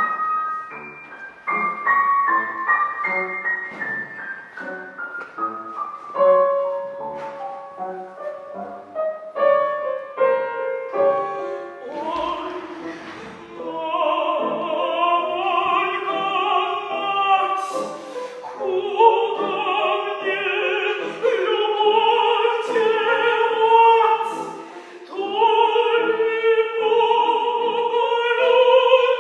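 Classical music: a slow descending line of piano notes, then an operatic voice singing sustained notes with wide vibrato over piano from about halfway in.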